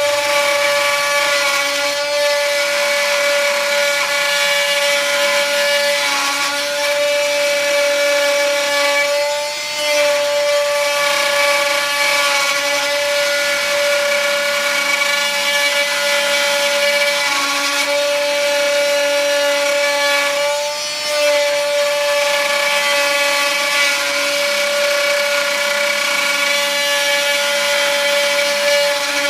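Spindle of a desktop CNC 3020 router whining steadily as it mills a wooden floorboard, with the rasp of the bit cutting wood under it. The whine sags briefly twice, about ten and about twenty-one seconds in.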